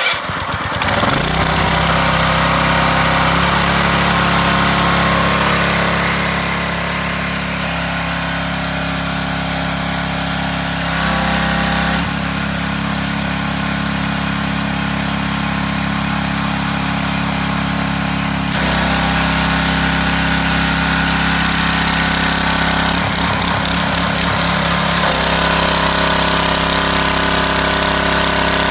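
Petrol pressure washer's 210cc engine, electric key-started warm, catching at once and then running steadily. Its sound shifts in level a few times, stepping up about two-thirds of the way through.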